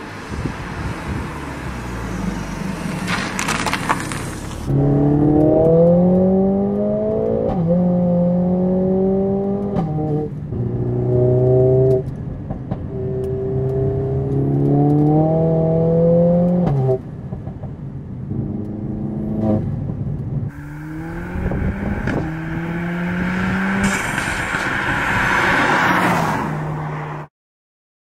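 Mercedes-AMG A45 S 2.0-litre turbocharged four-cylinder engine, in Stage 2 tune, under hard acceleration. At the start the car approaches and passes from outside. Then, heard from inside the cabin, the engine note climbs and steps down at each upshift, several times. Near the end comes another hard pull with a loud rushing turbo and intake hiss, and the sound cuts off abruptly.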